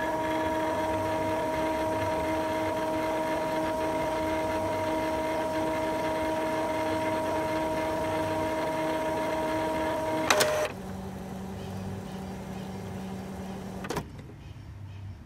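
Epson ink tank printer running a power cleaning of its print head: a steady motor whine for about ten seconds that stops with a click, then a quieter, lower hum that ends with another click near the end.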